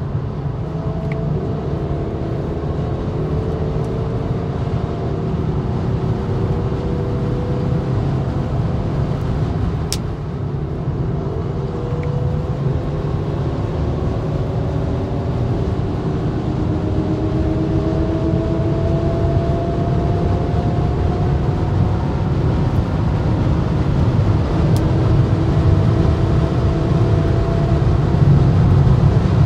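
Cabin noise inside a BMW X6 xDrive40d at autobahn speed: deep road and tyre rumble with the hum of its twin-turbo diesel straight-six slowly climbing in pitch as the car gathers speed, growing louder toward the end.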